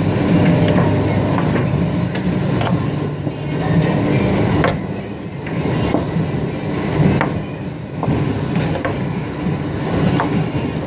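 Boning knife and chain-mail glove working a lamb joint on a wooden cutting block, giving scattered sharp clicks and knocks, over a steady low machine hum.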